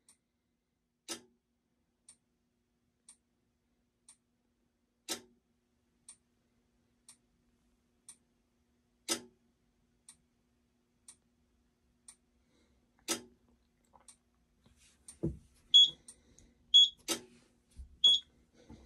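Regular faint ticking about once a second, with a louder click every four seconds. Near the end, three short high-pitched beeps from the Simplex 4100ES fire alarm control panel's keypad as its buttons are pressed.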